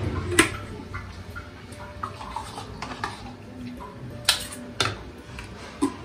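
Stainless steel kitchen vessels clinking: a few sharp knocks of steel bowl and sieve against each other, with one early on and three in the last two seconds, while wet ground coconut is scooped by hand into the strainer.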